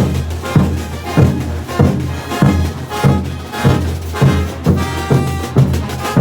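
Bolivian brass band playing, with a bass drum striking about every 0.6 seconds under full brass chords; the held chords are clearest near the end.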